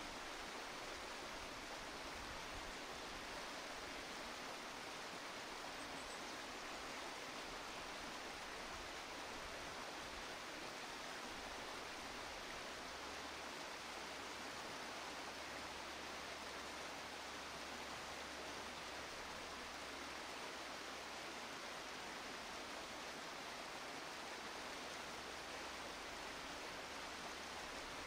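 A steady, even hiss of background noise, with no buzzing, calls or distinct events.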